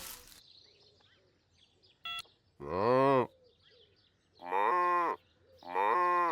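Cartoon cow mooing three times, the first moo about three seconds in and two more near the end, with a brief electronic beep about two seconds in.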